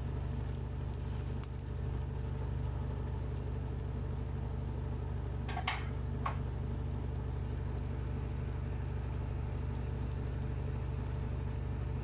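Steady low hum with a faint sizzle from an omelette frying in a pan, and two short clicks a little over halfway through.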